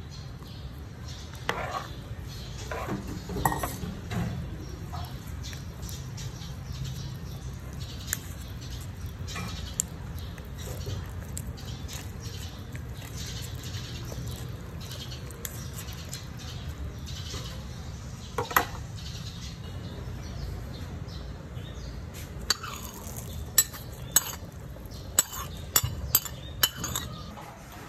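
Metal kitchen utensils stirring, scraping and clinking against a frying pan and a mesh strainer, over a steady low hum. A quick run of sharp clinks comes near the end.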